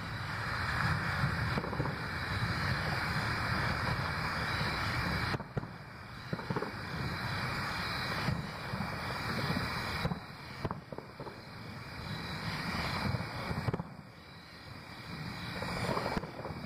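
Fireworks going off at a distance: a continuous rumble and crackle of bursts, with a few sharper reports scattered through.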